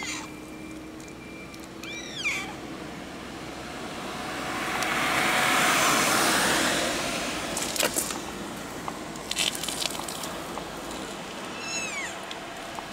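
Tabby-and-white cat meowing twice, short high calls about two seconds in and near the end. Between them a car passes, its noise rising and fading over a few seconds and the loudest thing heard, followed by a few sharp clicks.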